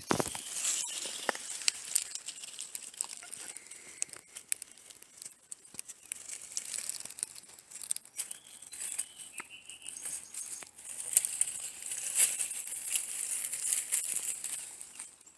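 Young nine-banded armadillos rooting and scurrying through dry leaf litter: irregular rustling and crackling of leaves with many sharp little clicks.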